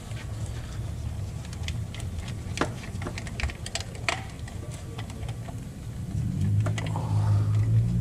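Repair-shop background: a steady low hum with scattered light clicks and taps. About six seconds in, a louder, steady pitched machine hum starts up.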